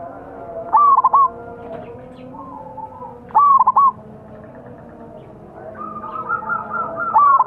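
Zebra dove (perkutut) cooing: three short, loud bursts of three or four quick notes each, about three seconds apart, over fainter bird calls in the background.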